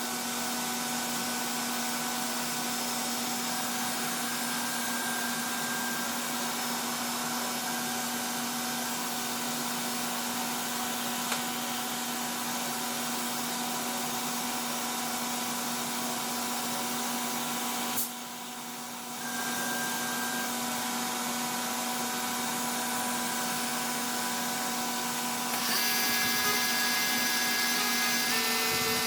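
Stepcraft M1000 CNC router running steadily while V-carving wood, its spindle whine sped up to twice actual speed. The level dips for about a second around the middle, and near the end it gets louder with a higher whine.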